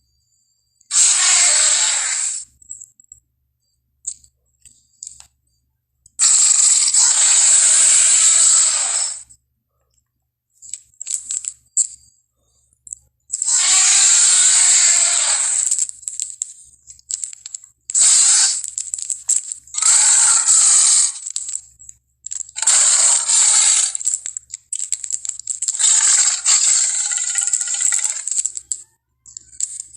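Edited monster roars and growls from dinosaur and Godzilla sound effects: a series of separate harsh roars, each one to four seconds long, with silence between them.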